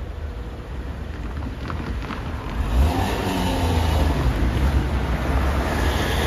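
Cars pulling away and driving past across a railway level crossing, engines and tyres getting louder from about two and a half seconds in as the nearest car accelerates by.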